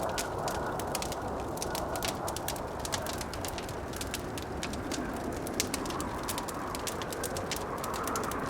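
Wood fire crackling with many small, irregular pops over the steady rush of blizzard wind; the wind rises into a higher howl near the end.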